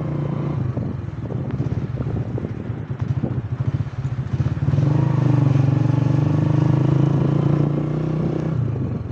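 Vehicle engine running steadily while driving, louder from about five seconds in and easing off near the end.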